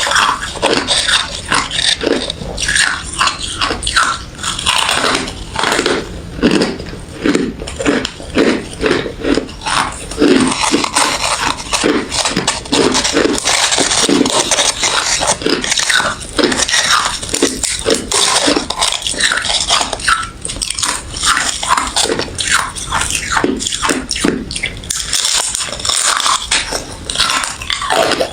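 A person chewing ice close to the microphone: a loud, continuous run of crisp crunches, one bite after another.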